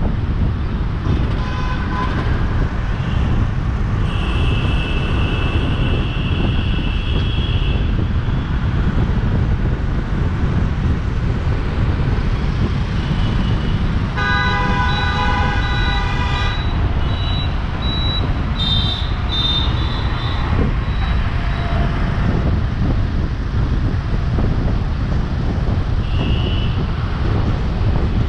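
City road traffic with a steady low rumble of tyres and wind, and vehicle horns honking over it several times: a long high-pitched horn about four seconds in, a loud horn of about three seconds in the middle, then a few short toots.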